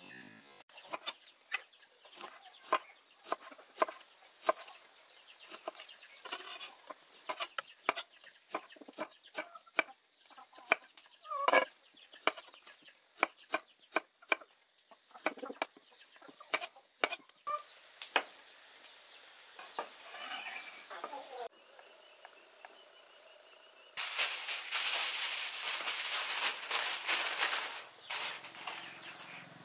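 A knife cutting limes on a stone slab in a run of irregular sharp knocks, with chickens clucking. Near the end comes a few seconds of loud crinkling from aluminium foil being handled.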